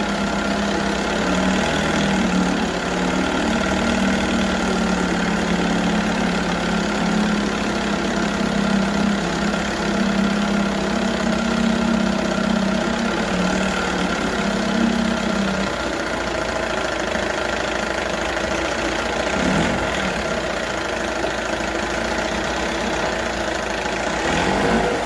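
1978 Johnson 6 hp two-stroke twin outboard running steadily at a fast idle during a warm-up run, to see whether it reaches operating temperature. A low hum in the sound stops about two-thirds of the way through.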